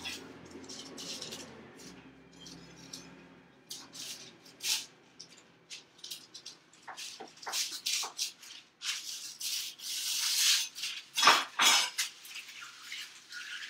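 Parchment paper rustling and crinkling as it is cut with a large kitchen knife and handled, with scattered clicks and a louder crackling stretch about nine seconds in. Two sharp knocks of a utensil on the counter about eleven seconds in.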